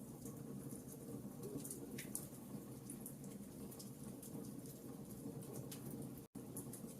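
Campfire burning: a steady low rumble of flames with frequent small crackles and pops of burning wood. The sound cuts out completely for an instant near the end.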